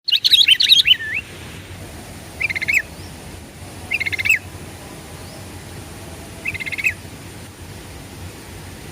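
Sooty-headed bulbul (kutilang) singing: a quick, bubbly burst of notes in the first second, then three short, alike phrases about every two seconds.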